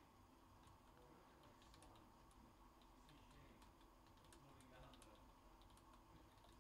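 Near silence with faint, irregular clicks and taps.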